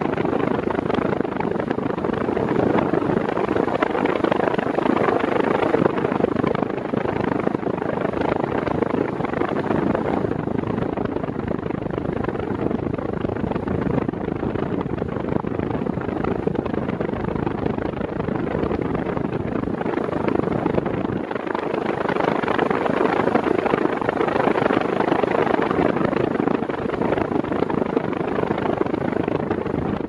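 Arno Ultra Silence Force 40 cm (VU40) fan running, its strong airflow of about 43 km/h rushing steadily past the anemometer in front of its grille.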